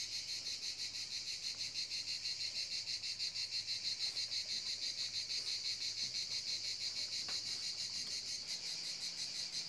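Steady chorus of singing insects: a high, shrill chirring with a fast, even pulse that runs on without a break.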